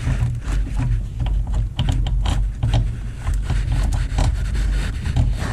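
Hand-handling clicks and scrapes of an unbolted engine control module and its wiring harness being shifted around in the engine bay, over a steady low rumble.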